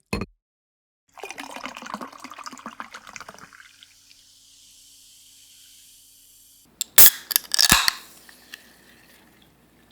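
Water being poured, a burst of gurgling and splashing that lasts about two seconds and trails off into a faint hiss. A short knock comes right at the start, and a few loud, sharp splashes follow near the end.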